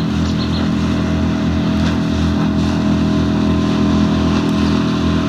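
Motorboat engine running steadily at a constant speed, a low even drone with a regular throb.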